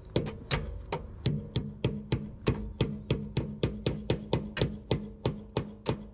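Small hammer tapping rapidly on the rusted steel spare-wheel carrier bracket under a caravan chassis, about three even strikes a second, to free the seized carrier.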